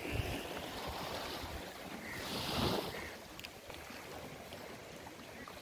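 Wind buffeting the microphone in uneven low gusts over a steady hiss of open water, with a brief higher rush a little over two seconds in.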